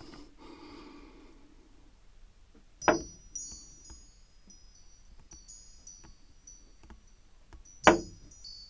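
Small metal-tube wind chime knocked by hand twice, about three seconds in and again near the end; each knock sets the tubes ringing in a cluster of high, clear tones, with a few lighter tinkles in between.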